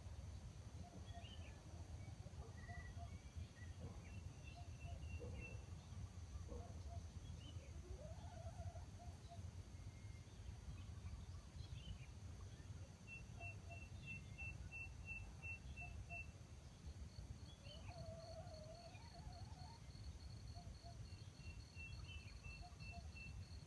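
Faint outdoor ambience over a low rumble: scattered distant bird calls, including a series of short high notes repeated three times. About two-thirds of the way through, an insect's steady high pulsing trill starts up.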